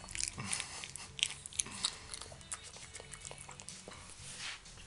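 Raccoon chewing and biting a piece of banana held in its paws, a run of quick clicks and smacks, thickest in the first two seconds.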